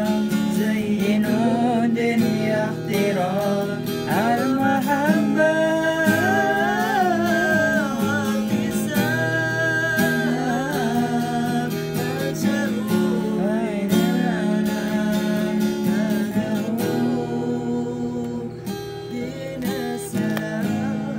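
A man singing with a strummed acoustic guitar, the melody bending in wavering ornamented runs; near the end the voice drops away while the guitar strumming carries on more quietly.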